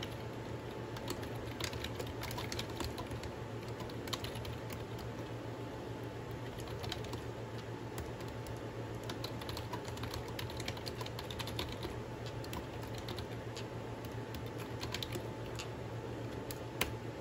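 Typing on a slim, low-profile computer keyboard: a continuous, irregular run of key clicks, with one louder click near the end, over a steady low hum.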